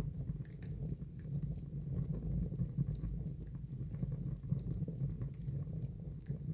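Wood fire burning in a fireplace: a steady low rumble with irregular crackles and pops.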